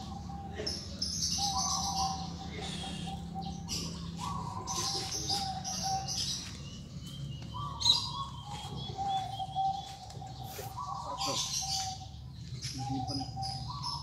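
Birds singing: high chirps from small birds, and a lower call repeated every few seconds, a short higher note dropping to a long held one. A steady low hum runs underneath.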